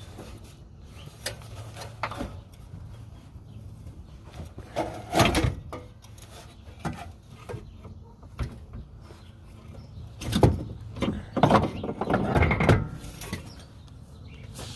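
Handling knocks and scrapes: several clunks with some scraping, the loudest about five seconds in and a run of them between about ten and thirteen seconds in, over a low steady hum.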